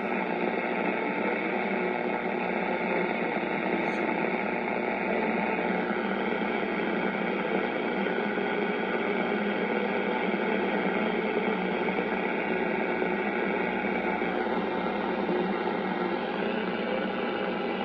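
Steady static hiss with a faint hum from a 1939 Philco 40-120 tube radio's loudspeaker, tuned near the top of the AM band. No station comes through the noise.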